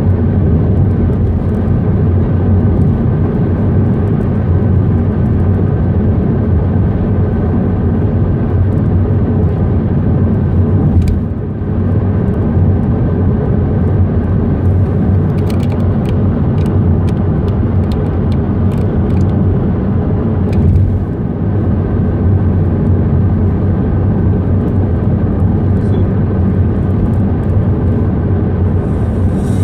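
Steady in-cabin drone of a car cruising at motorway speed: engine hum and tyre and road noise, heaviest in the low end, with brief dips about eleven and twenty-one seconds in.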